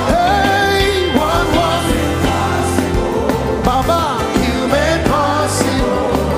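Live gospel worship music: a band with bass and drums under a sliding, ornamented lead melody.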